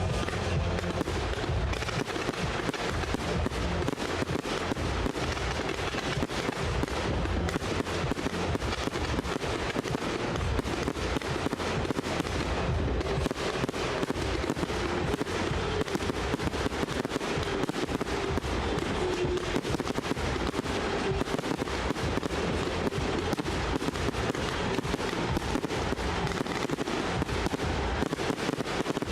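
Fireworks display at its height: a dense, continuous barrage of firework bangs and crackling, one burst overlapping the next with no pause.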